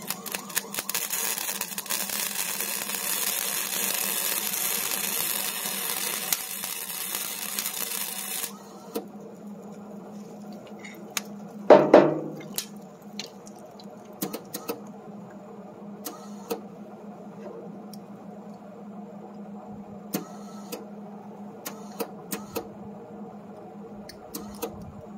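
Crackling, sizzling hiss of arc welding on steel, stopping sharply after about eight seconds. A single loud ringing clang follows a few seconds later, then scattered light clicks over a steady low hum.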